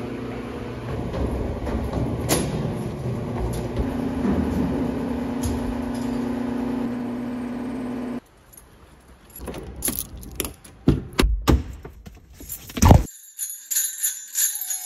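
Rustling handling noise with a steady low hum for the first eight seconds. Then a run of sharp metallic clicks and clinks, a bunch of keys jangling. A bell-like music intro starts right at the end.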